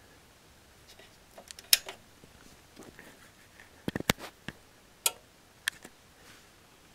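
Sharp clicks and knocks from QSC rack power amplifiers being switched on: the power switches and the amps clicking in, about a dozen clicks in small clusters over a few seconds. The loudest come about two and four seconds in.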